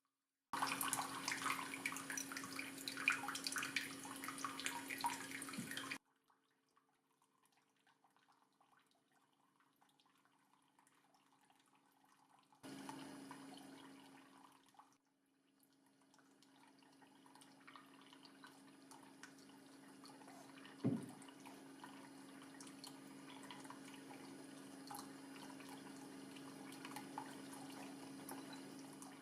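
Water splashing and trickling from a small faucet-style cat fountain, over the steady hum of its small 3–6 V water pump. The water is loudest for the first six seconds, cuts off sharply, and comes back about thirteen seconds in, with a single knock about twenty-one seconds in.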